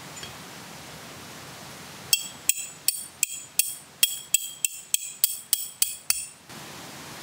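A metal tent stake being hammered into the ground: about a dozen sharp, ringing metallic blows at roughly three a second, starting about two seconds in and stopping after about four seconds.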